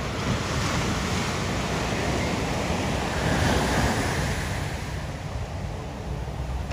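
Small ocean surf breaking and washing ashore: a steady rush of waves that swells about halfway through, with wind rumbling on the microphone.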